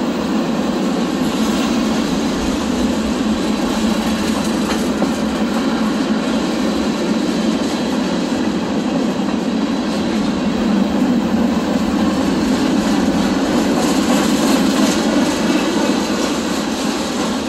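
Cars of a CSX mixed freight train rolling past close by: a loud, steady noise of steel wheels on the rails.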